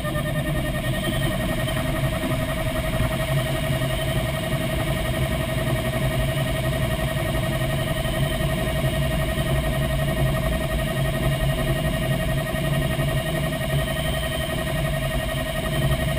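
Airflow noise inside the cockpit of a Grob Astir glider climbing on a winch launch: a steady rush and low hum with a constant high tone running through it.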